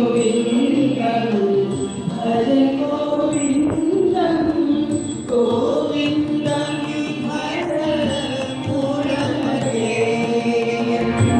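A group of singers chanting a devotional song together, accompanied by a harmonium and a tabla.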